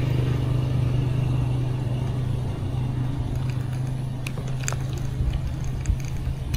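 A steady low motor hum, with scattered light clicks and ticks in the second half.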